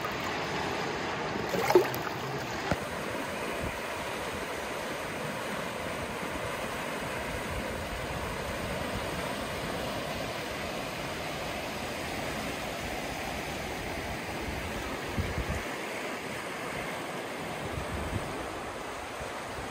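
River water rushing steadily through rapids and over a granite shoreline. A brief sharp knock sounds about two seconds in.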